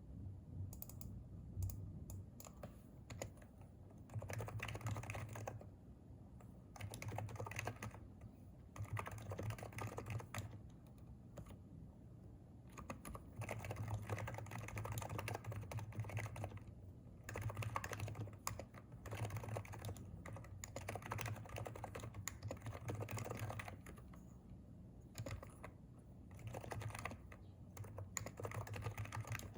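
Typing on a Hansung electrostatic capacitive (non-contact) keyboard: quick runs of keystrokes lasting a few seconds each, broken by short pauses.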